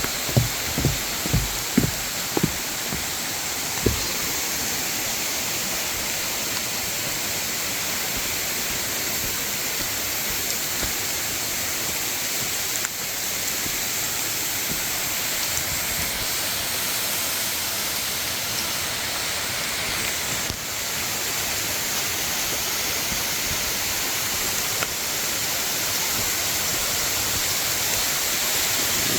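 Steady rushing hiss of Wibong Falls' water pouring down, dense and even throughout, with a few low thuds in the first couple of seconds.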